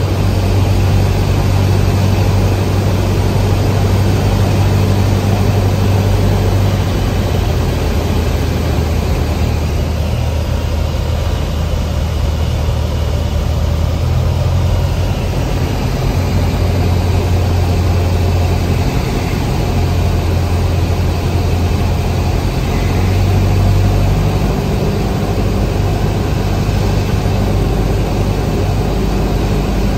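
Cessna 172's piston engine and propeller droning, heard inside the cabin on approach to land. The low engine note shifts in pitch a few times, around a third of the way in and again near the middle and two-thirds through, as power is adjusted.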